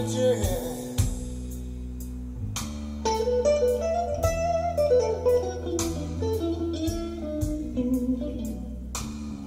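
Recorded guitar music played over hi-fi loudspeakers in a listening room: a guitar line with sliding, bending notes over a sustained bass, with sharp plucked attacks.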